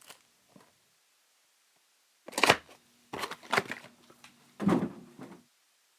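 A few seconds of quiet, then three short bursts of knocking and rustling from boxes and card packaging being handled. The first burst is the loudest.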